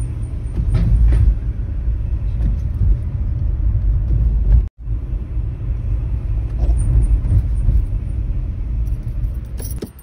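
Car driving, heard from inside the cabin: steady road and engine rumble, with a faint, pulsing high-pitched squeal from the wheel brakes twice, at the start and again about seven seconds in. The squeal comes with light braking and is the sign of worn front brakes. The sound cuts out briefly about halfway through.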